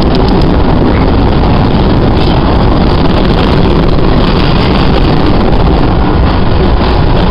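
MBTA Red Line subway train running at speed through a tunnel, heard from inside the car: a loud, steady roar of wheels on rails.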